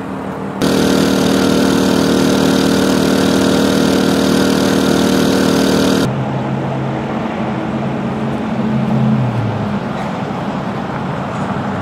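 A steady engine hum with a hiss on top, starting abruptly about half a second in and cutting off about halfway through. A lower engine drone follows, and its pitch drops near the end.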